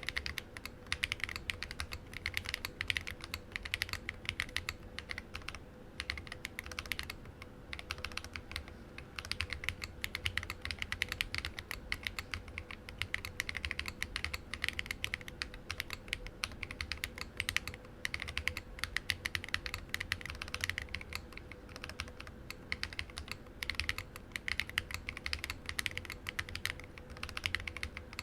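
Continuous typing on a Lily58 split mechanical keyboard with lubed Glorious Panda tactile switches, an acrylic plate and SA-profile PBT keycaps. The keystroke clacks come in a steady stream, several a second, over a faint steady hum.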